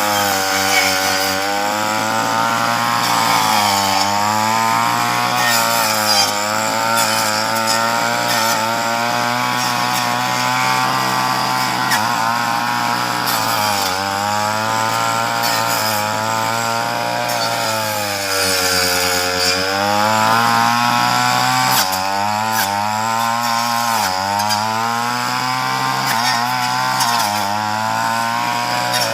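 Chainsaw running at high speed and cutting through tree branches, its engine pitch dropping each time the chain bites into the wood and climbing back as it frees, about five times over.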